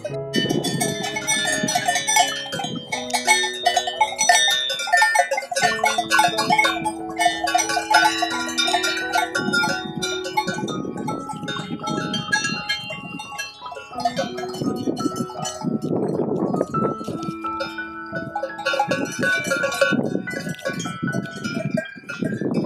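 Swiss cowbells on a herd of cattle, many bells of different pitches clanking and ringing irregularly and overlapping, along with some duller low clunks.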